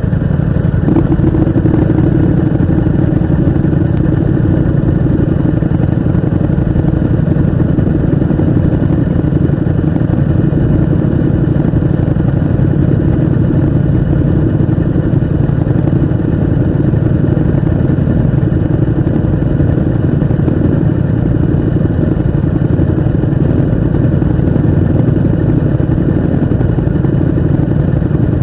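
Motorcycle engine running steadily with a dense low rumble, holding an even level with no marked revving.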